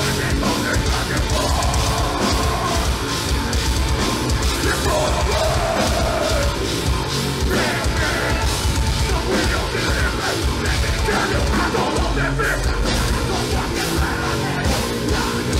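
A metal band playing live and loud: distorted guitars and pounding drums in a dense, unbroken wall of sound.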